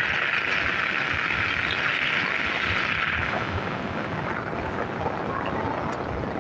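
Steady hiss of falling rain that eases about three seconds in, leaving a lighter patter with scattered drips.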